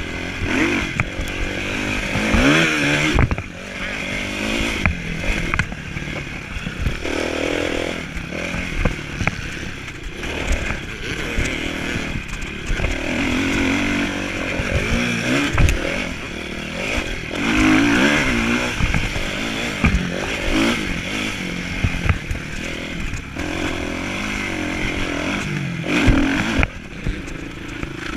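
Motocross bike engine heard close up from a camera mounted on the bike, revving up and falling back again and again under hard acceleration, with knocks and rattles from the bike over the bumps of the track.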